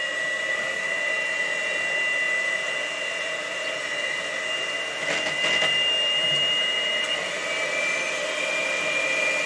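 Electric hand mixer running steadily, its beaters whipping a wet batter of water, mayonnaise and eggs in a plastic bowl. The motor makes a steady whine, with a brief rattle about five seconds in; the whine shifts slightly higher about seven seconds in.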